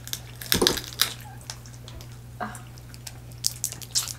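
Eating a seafood boil by hand: irregular wet clicks and cracks of boiled crab-leg shells and shrimp being broken and peeled, with chewing, over a steady low hum.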